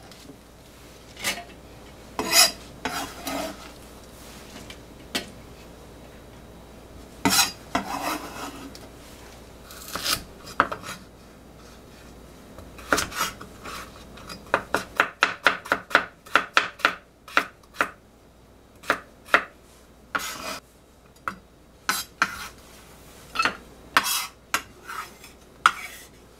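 A cleaver-style kitchen knife knocking on cutting boards: scattered knocks and clatter at first, then a quick run of chopping through a carrot on a wooden board at about six cuts a second about halfway through, followed by slower single cuts.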